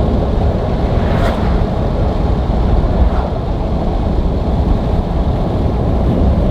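Steady wind and road roar inside a full-size pickup's cab at about 60 mph with the windows down. There is a brief click about a second in.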